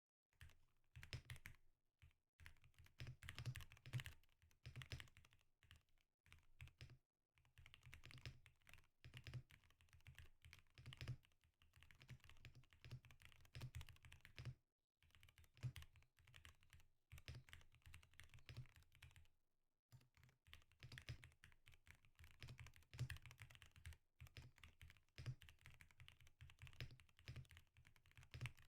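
Typing on a Zuoya GMK67 mechanical keyboard with Cherry MX Hyperglide Black linear switches and PBT XDA-profile keycaps, unlubed and without tape mod: quick runs of soft key clacks with a low thock under each stroke, broken by a few short pauses.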